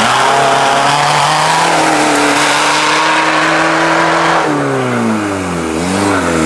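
Engine of a modified 4x4 off-road race vehicle held at high revs under load, with a loud rushing noise over it, through the first four seconds or so. Then the revs drop sharply and the noise stops, followed by one quick blip of the throttle and another drop near the end.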